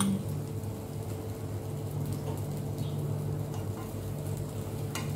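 Steady low hum with a faint hiss, and a few light clicks and scrapes of a fork and spatula as food is moved from a frying pan onto a plate. There is one sharper clink near the end.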